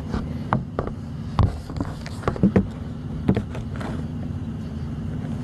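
A heavy truck's engine idling as a steady low hum, with a scatter of close clicks and knocks from handling small plastic parts, loudest in a quick cluster about halfway through.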